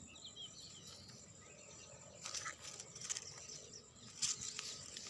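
Rural outdoor ambience: a steady high insect drone with a few short bird chirps near the start, then irregular rustling and crackling from about two seconds in.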